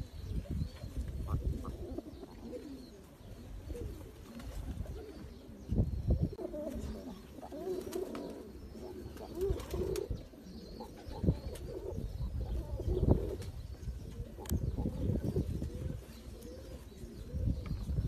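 Domestic fancy pigeons cooing, a run of wavering coos that come and go. Under them is a low, uneven rumble with a few soft knocks.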